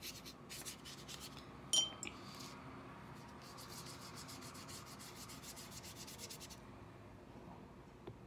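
Paintbrush scrubbing wet watercolor paint back and forth across thin paper in quick strokes that stop about two-thirds of the way through. About two seconds in there is a single short, bright clink.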